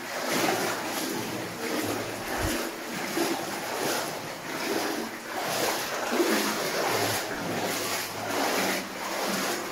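Water sloshing and splashing around legs wading through a flooded mine level, surging about once a second with each stride.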